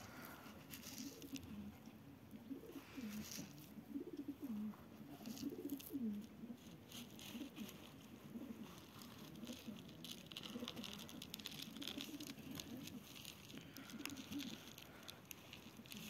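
Domestic pigeons cooing, a faint run of repeated low coos one after another, with faint scattered ticks.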